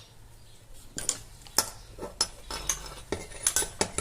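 Irregular sharp metallic clicks and clinks, about a dozen, denser in the second half, from the metal parts of an Arno electric fan motor as a bearing housing stuck on its shaft is worked to pull it off.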